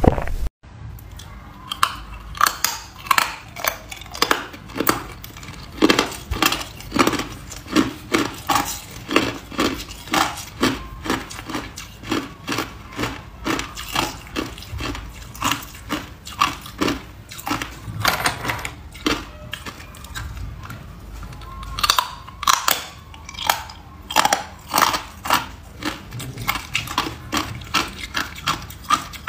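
Hard ice being bitten and chewed close to the microphone: a steady run of sharp crunches, roughly one to two a second.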